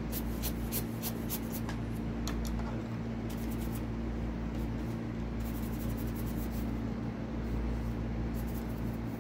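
Typing: irregular runs of light, quick key clicks, in clusters with short pauses, over a steady low electrical hum.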